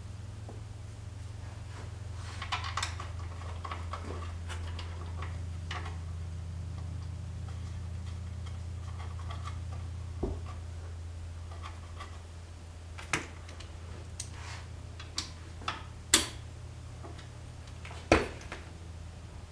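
Metal hand tools and engine parts clinking and knocking on a workbench as they are handled: scattered light clicks and small rattles, with a few sharper knocks in the second half. A steady low hum runs underneath.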